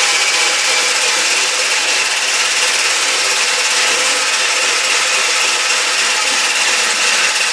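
Electric hand mixer running steadily, its beater whisking soft butter, egg and sugar in a stainless steel bowl.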